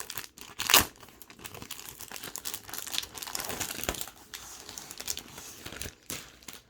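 DVD box-set packaging being handled and unpacked: crinkling and rustling with many small clicks, and one sharp snap about a second in.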